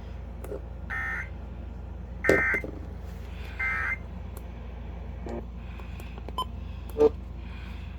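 Three short bursts of Emergency Alert System SAME digital data tones, about a second and a half apart: the end-of-message code that closes a weather warning. A sharp knock comes near the end, over a steady low hum.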